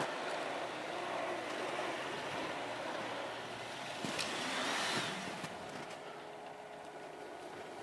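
Off-road 4x4 SUV engine running as it drives slowly down a snowy track, with a louder swell and a rising whine about four seconds in, then quieter.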